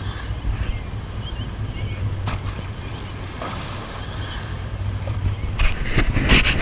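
A boat's engine drones steadily under wind noise on the microphone and rushing water. About five and a half seconds in, louder, ragged gusts of wind and water noise take over.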